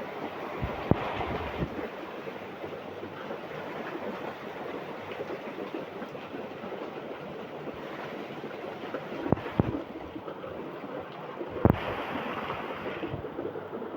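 Steady rain, an even hiss, with a few sharp knocks: one about a second in, two close together about two-thirds through, and one more shortly after; near the end the hiss goes duller.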